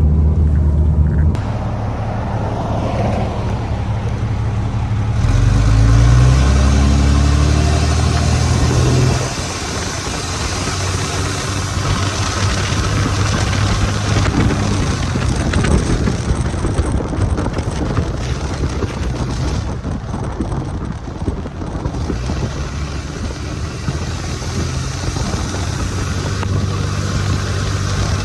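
Truck driving: the engine speeds up a few seconds in, rising in pitch and staying loud until about nine seconds, then settles into steady road noise.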